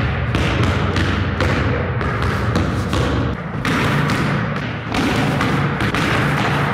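Basketball dribbled hard and fast on a hardwood floor, a quick even run of bounces at about four a second with a couple of brief breaks in the rhythm.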